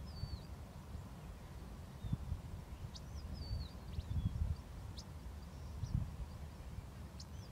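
Small birds calling with short warbling whistles and a few sharp chips, three or four times. Underneath runs a steady low rumble that swells now and then.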